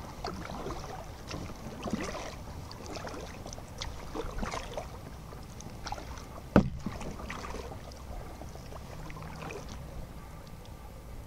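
Kayak paddle strokes: irregular splashes and drips of water off the paddle blades. A single sharp knock about six and a half seconds in is the loudest sound.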